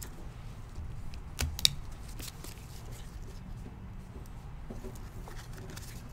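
Trading cards and pack wrappers being handled: scattered light clicks and rustles, with the sharpest click a little past one and a half seconds in.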